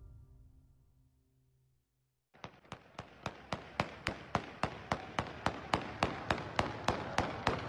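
Theme music fading out, a moment of silence, then a rapid series of sharp bangs, evenly spaced at about four a second, starting a little over two seconds in and running on.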